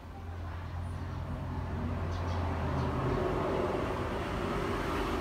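Low engine hum of a motor vehicle, growing louder over the first few seconds and then holding steady.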